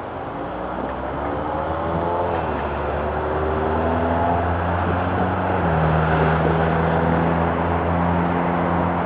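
An engine running. Its pitch rises over the first few seconds, then holds steady, and it grows louder.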